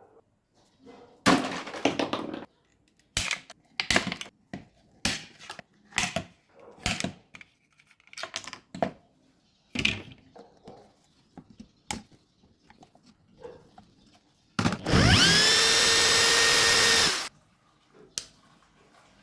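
Irregular knocks and clicks of small metal and plastic parts being handled, then a small electric motor, most like a power drill, that spins up quickly, runs at a steady whine for about two and a half seconds and cuts off.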